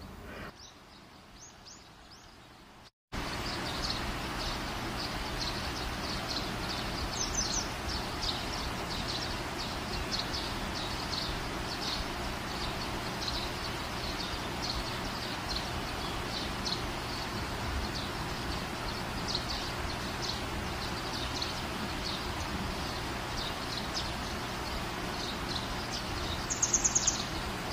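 Birds chirping busily over a steady background hiss, cutting in suddenly about three seconds in after faint room tone, with a brief higher call near the end.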